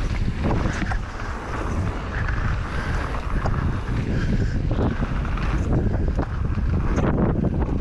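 Wind buffeting an action camera's microphone as a mountain bike rides fast down a dirt jump trail, over a steady low rumble of tyres on dirt and frequent short knocks and rattles from the bike.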